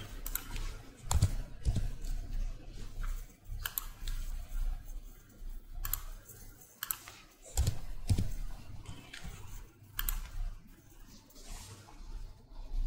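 Computer keyboard keystrokes and mouse clicks, coming singly or a few at a time with pauses between them, as values are typed into a form.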